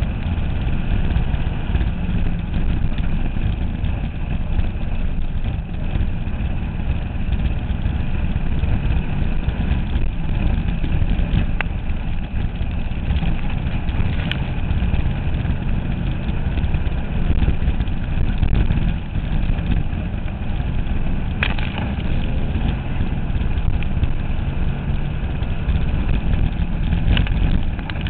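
Dirt-track race car's engine running steadily at low revs, heard from a camera mounted in the car, with a few brief clicks.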